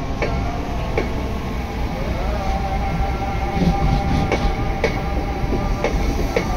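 Train running past, its wheels clicking irregularly over rail joints under a steady rumble. A steady whining tone joins about two seconds in.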